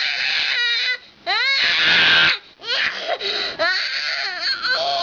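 A young child screaming and crying in a tantrum after waking from a nap: high-pitched wailing cries with rising and wavering pitch, in three long stretches broken by two short breaths.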